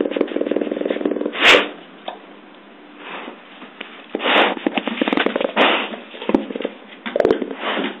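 Yellow Labrador retriever's jaw chattering, his teeth clicking in rapid runs, in the first second or so and again from about four to six seconds in, with several short loud bursts between the runs. The chattering comes with the dog's excitement.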